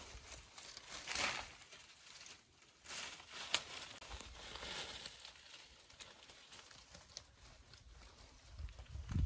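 Leafy branches rustling and crinkling as leaves are picked and handled, in irregular bursts with a few sharp clicks, the loudest about three and a half seconds in.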